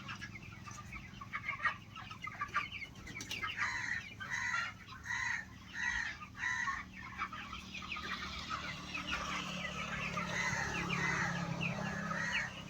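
A flock of chickens clucking, with a run of short repeated calls about half a second apart in the middle and many birds calling over one another near the end.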